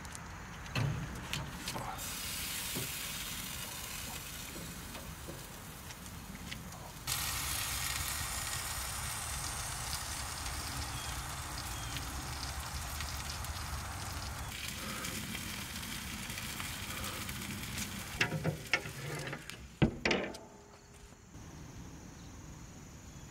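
Steady hissing from a wood fire burning in an offset smoker, with a few knocks from the turkey and grate being handled about a second in and near the end.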